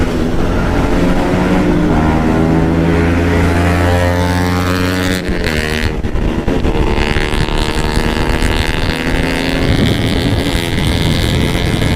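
KTM RC 200's single-cylinder engine accelerating hard through the gears: its pitch climbs steadily, breaks briefly at an upshift about five seconds in, then climbs again, over a rush of wind.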